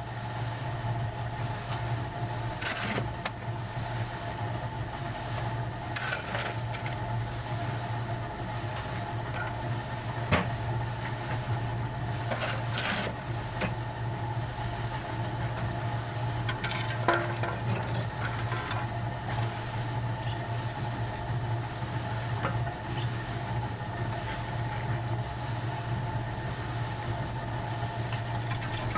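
A steady machine hum, like a motor running at constant speed, with scattered knocks and clatters over it.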